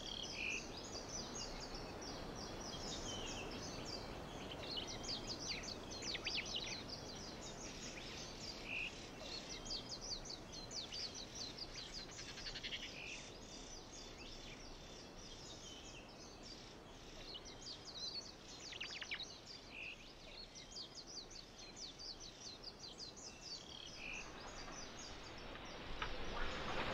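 Many small animals calling outdoors: a dense run of short, high chirps over a faint steady hiss, with an occasional lower, shorter call.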